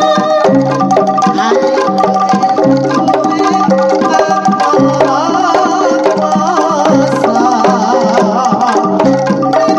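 Jaranan gamelan accompaniment played loud through a large sound system: struck metallophone notes in a repeating pattern over steady drum and percussion strokes, with a wavering melody line in the middle.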